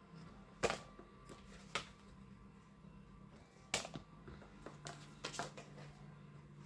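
Stiff printed cards being handled and laid down: a few short slaps and rustles of card, the sharpest about half a second and nearly four seconds in.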